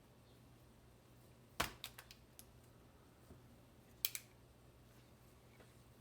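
Sharp clicks and taps of small tools and parts on a laptop being taken apart to remove its battery: a quick run of clicks about a second and a half in, then two more near the end.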